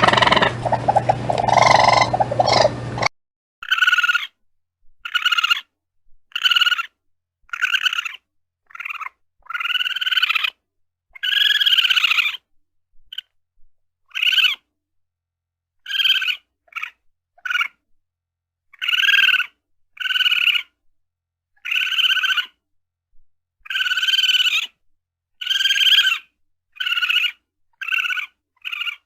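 Raccoon calls. For the first three seconds there is a busy run of calls over a background hum; after that come about twenty separate high-pitched cries, each well under a second long, with short silent gaps between them.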